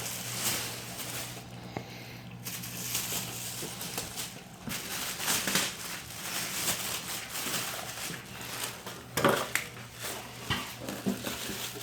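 Packaging being handled and crumpled while unpacking a chest freezer: irregular rustling and crinkling of cardboard and plastic wrap, with a few sharper crackles.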